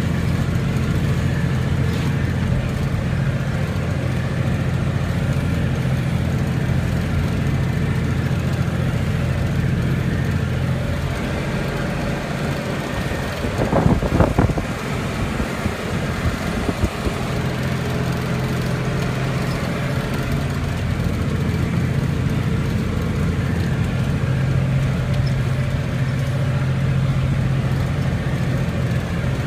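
Tractor engine running steadily while pulling a haying implement, heard from inside the cab. A brief louder noise comes about halfway through.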